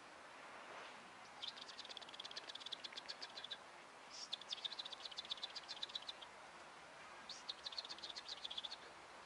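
A bird singing three rapid high trills of about two seconds each, separated by short pauses.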